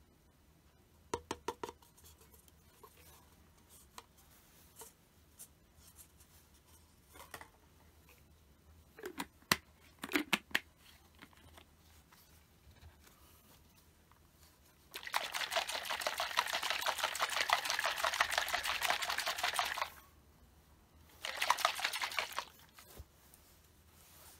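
A capped plastic bottle of oil-based fish attractant is shaken hard for about five seconds, its liquid sloshing and rattling. It is then shaken again briefly. Earlier there are a few light clicks and knocks as the cup, cap and bottle are handled.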